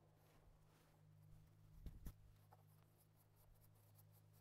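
Near silence: a faint steady low hum, with two soft knocks about two seconds in.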